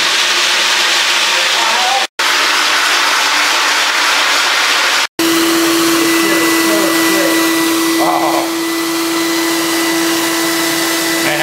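A rotary floor machine grinding a marble floor, a steady loud rush broken twice by sudden dropouts. About five seconds in, a wet vacuum with a squeegee floor tool takes over, sucking up the grinding slurry with a steady motor whine.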